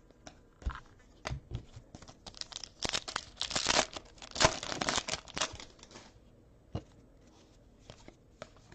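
Foil trading card pack wrapper being torn and crinkled, with scattered crackles at first and a dense stretch of crinkling in the middle.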